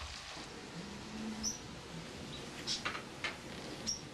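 Kitchen work: a few sharp clicks and taps in the second half, with a few short high squeaks over a steady low background.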